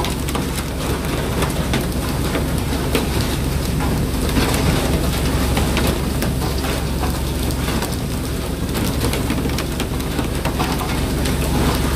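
Fishing boat's engine drone under a constant hiss of water and deck noise, with scattered small knocks and clicks.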